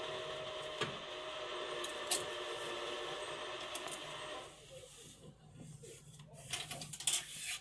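Tow truck running with a steady hum that cuts out about four and a half seconds in. Scattered clicks and knocks follow near the end.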